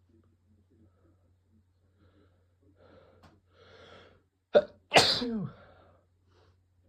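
A man sneezing with a cold: breathy build-up breaths, a short sharp burst, and then, about five seconds in, one loud sneeze whose voice falls in pitch as it trails off.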